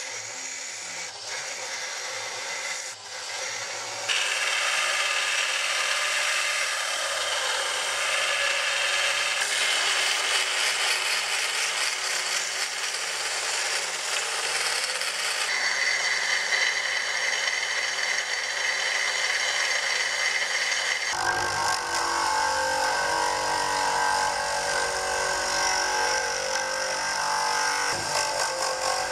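A bandsaw blade cutting through a steel hammer head, heard in several cut-together stretches. About three-quarters of the way through it changes to a bench grinder running as the steel head is ground against the wheel.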